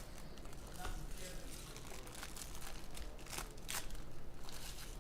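Baseball card pack wrappers crinkling and tearing as packs are ripped open, with sharp crackles of the wrapper now and then.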